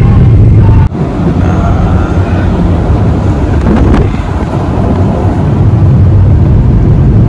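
Loud, steady low rumble of a moving vehicle, road and engine noise, which dips briefly about a second in.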